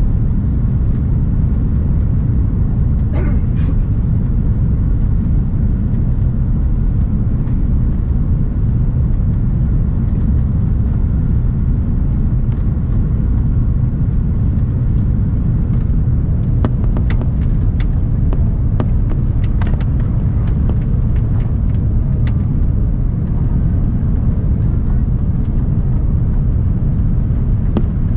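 Steady, loud low rumble of an Airbus airliner's cabin in flight, from the engines and the airflow over the fuselage. From about halfway through, a run of sharp clicks and light rattles sounds over it.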